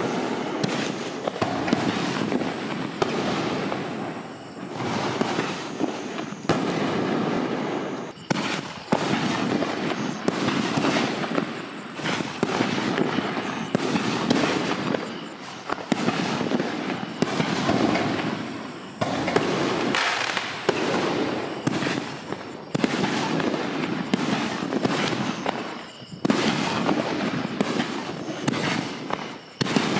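Consumer aerial firework canister shells going off one after another, each stretch a dense crackling noise of several seconds, with short dips between them. These red, white and blue shells have no whistle effect.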